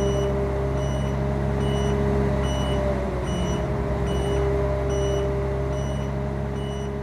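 Self-propelled heavy low loader moving at crawling pace under a load: its engine hums steadily while a warning beeper sounds a short high beep about every two-thirds of a second.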